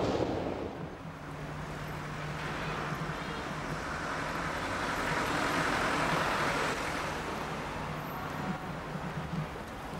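City street traffic: a steady hum of vehicles, with one passing vehicle swelling and fading about halfway through.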